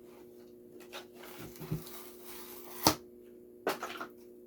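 Handling of a boxed die-cast toy car and its plastic packaging: soft knocks and rustles, a sharp click about three seconds in, and a brief patter of clicks just before the end, over a faint steady hum.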